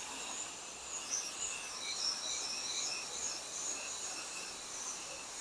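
Insects chirping over a steady hiss, with wavering high-pitched trills that come and go.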